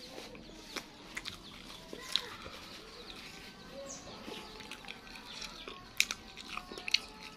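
Quiet eating sounds while leftover rice is picked off a plate by hand and chewed: scattered sharp clicks, with a few louder ones close together near the end.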